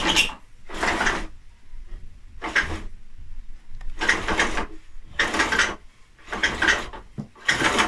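Old cloth window blind being hauled up by its cord in hand-over-hand pulls: about seven rasping strokes, roughly one a second, as the cord drags through its fittings.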